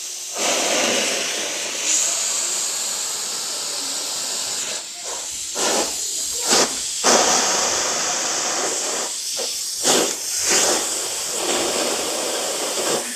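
Vacuum cleaner running, air rushing into the hose nozzle as a steady hiss. The hiss dips and surges several times while the cat grabs and bites at the nozzle.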